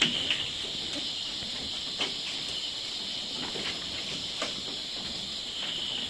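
Steady high drone of insects, with a few scattered knocks from goats' hooves on the slatted wooden floor of the goat house; the loudest knock comes right at the start.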